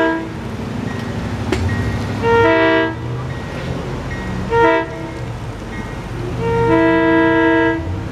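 Budd RDC railcar's air horn sounding a multi-note chord in the grade-crossing pattern: the tail of one blast, then a long blast, a short one and a final, longest blast. A steady low rumble runs underneath.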